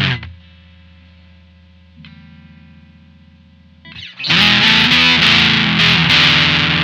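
Electric guitar (Squier Telecaster) played through a Maestro Fuzz Tone FZ-M fuzz pedal: a loud fuzzy chord cuts off right at the start, a few much quieter held notes ring with a change of note about halfway, then loud fuzzy chords are strummed again from about four seconds in.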